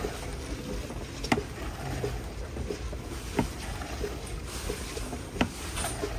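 A long wooden paddle sweeping thick, boiling sugarcane juice across a wide, shallow jaggery pan, the syrup sloshing over a steady low rumble. A sharp click comes about every two seconds.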